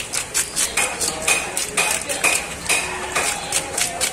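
Rapid, rhythmic scraping as the scales are stripped off a large katla fish, about five strokes a second.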